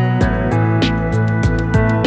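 Background music with sustained notes and a steady beat.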